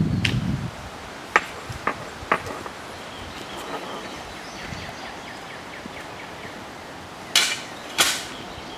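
Hammer blows on metal: three light strikes about a second in, then two louder ringing strikes near the end, about half a second apart.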